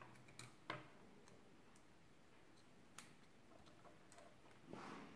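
Near silence with a few faint, sharp clicks from a small screwdriver working on plastic 9-gram micro servos, the clearest under a second in, and a soft rustle near the end.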